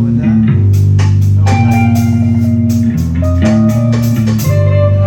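Rock band music with electric guitar, bass guitar and drums, the bass holding long notes while the cymbals are struck repeatedly through the middle of the passage.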